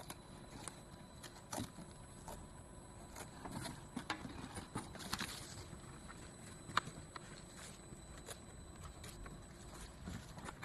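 Faint, irregular light clicks and taps, with a brief rustle about five seconds in and one sharper click shortly after.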